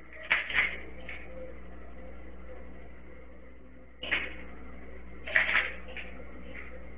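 RIA STK100 pistol being dry-fired with a laser trainer: a single sharp click of the trigger breaking about four seconds in, with clusters of quick mechanical clacks just before and after it as the slide is racked to reset the action. Heard through a security camera's microphone over a steady low hum.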